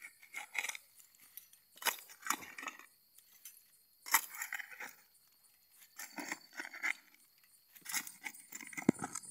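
Hand digging tool stabbing and scraping into hard, stony soil, a series of irregular crunching strikes with a sharp one near the end.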